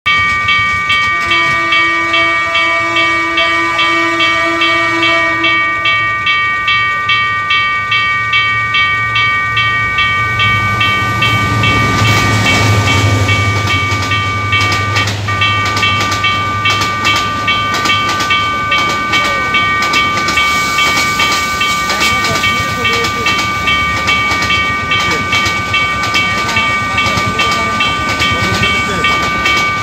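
A level-crossing warning alarm rings in a fast, even pulse throughout. Near the start a train horn sounds for a few seconds, then the train passes: its low engine rumble swells about a third of the way in and eases off, giving way to the rattle of coaches rolling over the rails.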